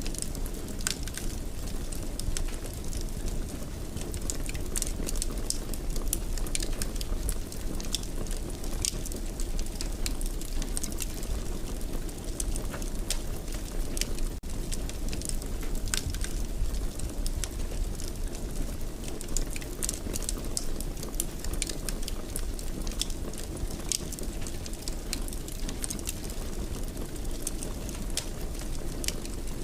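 Wood fire in a fireplace crackling steadily, with frequent small sharp pops over a low rumble of the flames.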